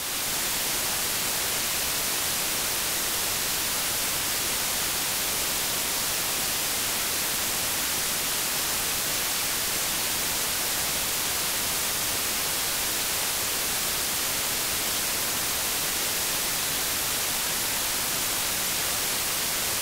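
Television static: a steady, even hiss of white noise, brightest in the treble.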